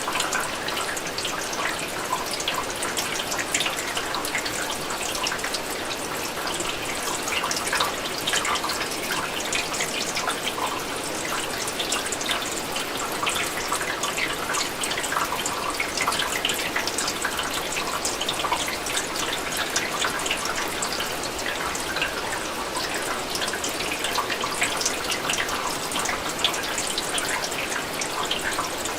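Steady rain falling on window glass: an even wash of rain noise with many individual drops ticking against the pane.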